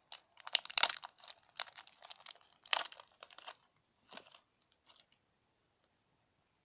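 A Yu-Gi-Oh booster pack's foil wrapper being torn open and crinkled: a run of sharp crackles for about three and a half seconds, then a few faint rustles.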